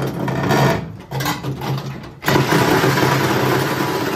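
A handheld power cutting tool running in bursts as it cuts through the car's sheet-steel floor pan. It starts abruptly, cuts out briefly about a second in and again about two seconds in, then runs steadily with a low, even pitch.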